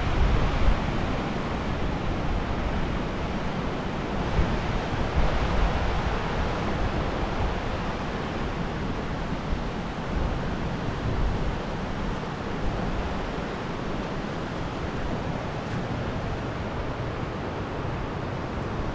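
Steady rushing of a muddy river in flood, with wind buffeting the microphone in gusts, strongest near the start.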